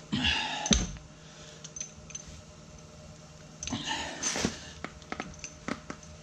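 Tire plug insertion tool being forced into a tire puncture with a sticky rubber plug strip: two hard pushes of rubbing and straining, the plug about halfway in, with a sharp click under a second in and a few smaller clicks near the end.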